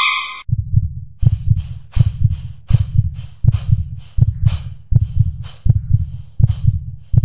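Heartbeat sound effect: a low double thump repeating steadily about every three-quarters of a second.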